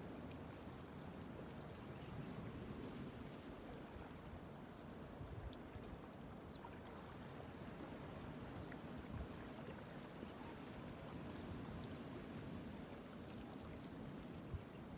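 Steady wash of water against a rocky shoreline, with a low rumble underneath and a few faint ticks.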